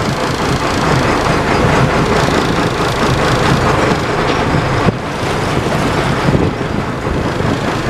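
A steady, noisy rush of wind on the microphone mixed with the running of a fishing boat's motor.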